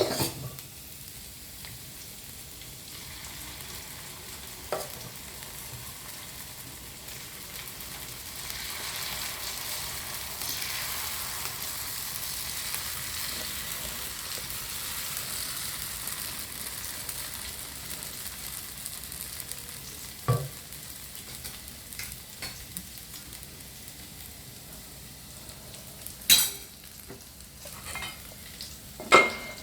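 Dosa batter sizzling on a hot griddle. The hiss swells a few seconds in and eases off later. A few sharp knocks, as of a utensil against the pan, stand out.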